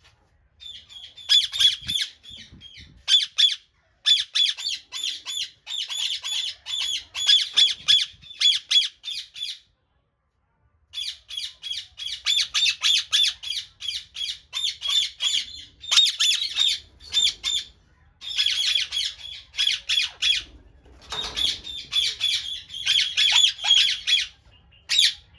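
A bird giving rapid, harsh squawking calls in long runs, several notes a second, with a brief break about ten seconds in.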